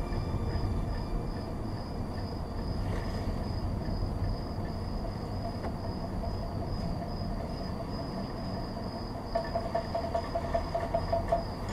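A steady low rumble with a thin, steady high trilling tone above it; near the end a quick run of rhythmic clicks, about four a second.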